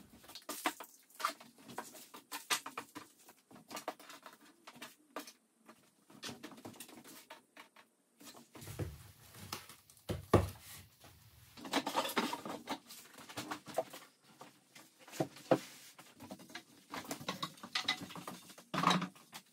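Scattered light taps, clicks and knocks of objects being handled and set down, with a duller thud about ten seconds in and footsteps on a wooden floor near the end.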